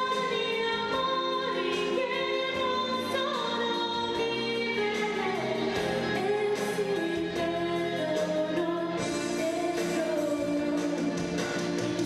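A young woman singing a song into a handheld microphone over musical accompaniment, her voice amplified, with long held notes.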